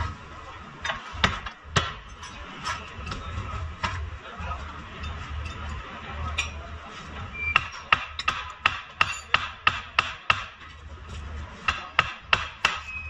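Metal-on-metal hammer blows on a car's front suspension at the lower control arm ball joint and steering knuckle, the kind struck to knock the joint loose when the arm is replaced. A few single blows come first, then a quick run of about a dozen strikes, and a shorter run near the end, over a steady low hum.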